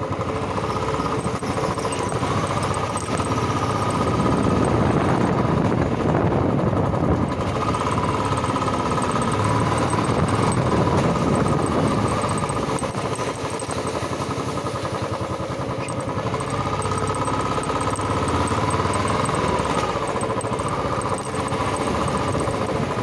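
Royal Enfield motorcycle engine running as the bike is ridden slowly, heard from on the bike; the engine noise grows louder and eases off a couple of times as the throttle is worked.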